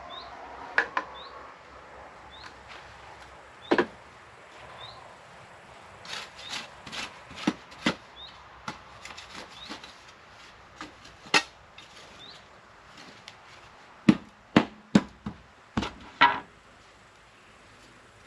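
Irregular sharp knocks and clacks of wood being handled, with some rubbing and scraping between them. The loudest is a quick run of knocks about fourteen to sixteen seconds in.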